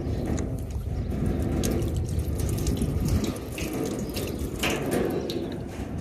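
Water running from a tap in a thin stream into a galvanized metal wash trough, splashing on the metal; it eases off near the end.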